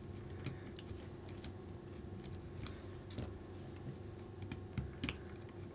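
Light, irregular clicks and taps of small screws and plastic body mounts being handled while fitting them to an RC drift car chassis.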